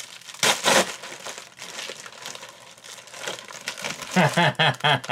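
Plastic bubble mailer torn open by hand, with a loud rip about half a second in, then crinkling and rustling of the plastic as the contents are pulled out. A man's voice comes in near the end.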